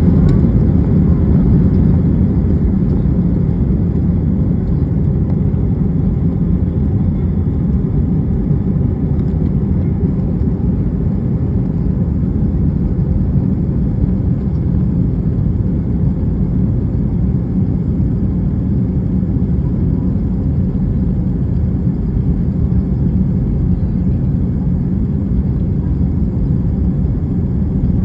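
Inside the cabin of an Airbus A320-232, its two IAE V2500 turbofan engines run at takeoff power: a steady, loud, low rumble and roar.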